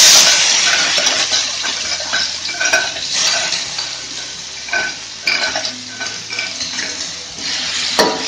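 Ground chili, shallot, garlic and shrimp-paste spice paste sizzling in hot cooking oil in an aluminium wok, loudest right at the start as it hits the oil and then settling to a steady sizzle. A metal spatula scrapes the paste off a stone mortar and clinks against the wok, with a sharp clink near the end.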